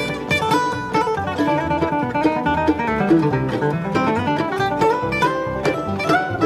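Acoustic bluegrass-style string band playing, with banjo, mandolin and guitar picking quick notes.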